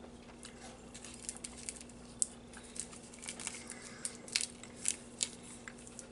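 Chewing a piece of toffee close to the microphone: irregular small sticky clicks and crackles, more of them in the second half, over a faint steady hum.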